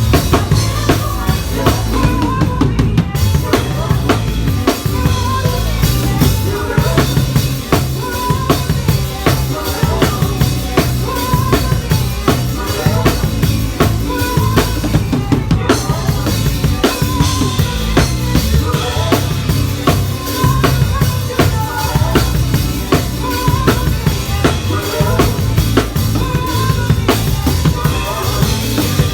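Drum kit played live with a band: a steady groove of kick drum, snare and rimshots, with sustained bass notes and other instruments underneath.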